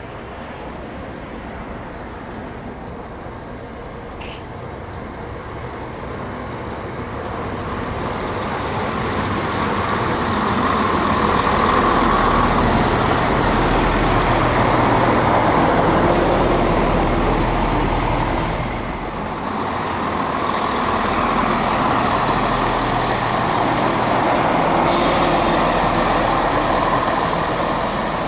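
Class 170 Turbostar diesel multiple unit running into the station: its underfloor diesel engines and running gear grow steadily louder as it approaches, then stay loud as it runs alongside, with a brief dip about two-thirds of the way through.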